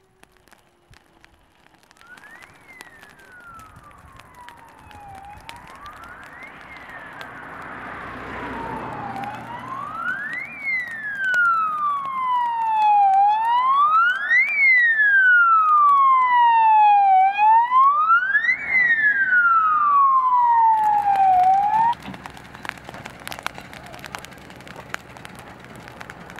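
Fire brigade van's siren wailing, rising and falling about every four seconds. It grows louder as the van approaches, then cuts off abruptly about 22 seconds in.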